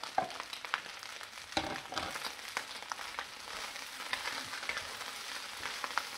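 Buttered rice, egg and vegetables sizzling in a wok as they are stirred and scraped together, with scattered sharp clicks of the utensil against the pan.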